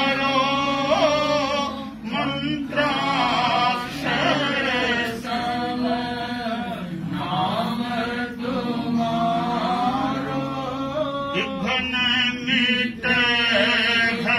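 A man singing a Terapanth Jain devotional hymn in Rajasthani in a chanting melody, a single male voice that carries on without a break.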